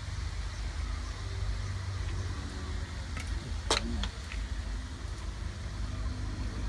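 Steady low rumble and hiss, with one sharp click about three and a half seconds in.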